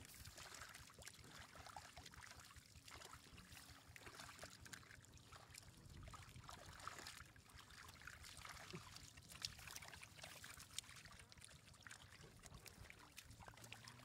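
Faint sloshing and trickling of shallow muddy water stirred and scooped by hands, with scattered small splashes and drips.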